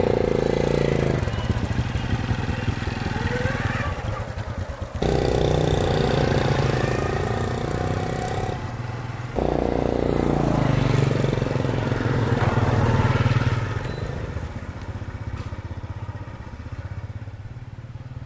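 Small step-through motorbike engines running as the bikes ride off, the sound jumping abruptly twice and fading away over the last few seconds.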